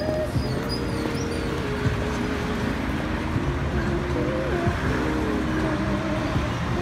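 City street ambience: steady traffic noise with scattered voices from a nearby café terrace.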